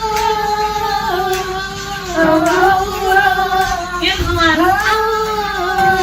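Music with a high singing voice holding long notes that slide from one pitch to the next.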